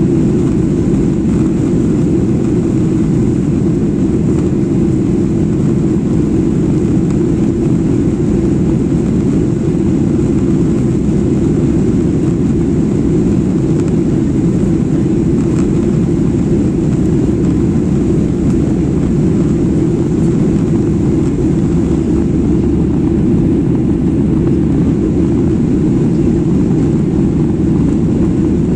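Steady cabin noise inside a jet airliner: an even low rush of engines and airflow.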